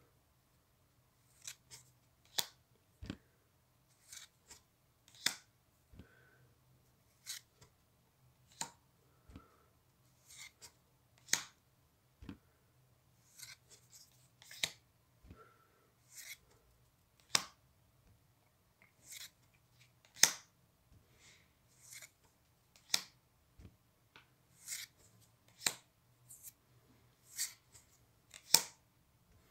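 Paper trading cards being slid and flicked from a small stack held in one hand, one card at a time: short, crisp card-on-card swishes and snaps, irregularly spaced, about one every second.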